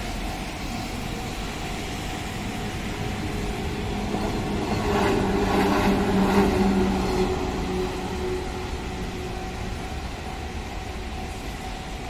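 JR 113 series electric train passing over a level crossing, loudest about five to seven seconds in and then fading, over the steady ring of the crossing's warning bell.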